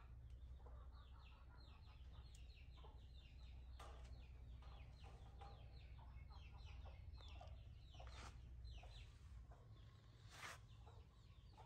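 Faint chickens clucking, with a steady run of short, falling chick-like peeps, many each second. A brief louder noise about ten seconds in.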